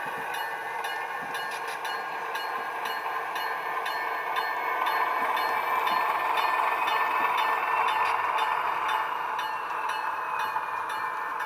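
Model railroad diesel switcher running slowly, with a steady hum from its engine sound and motor that grows louder in the middle as it passes close by. A faint whine rises and then falls in pitch, over a light ticking about twice a second.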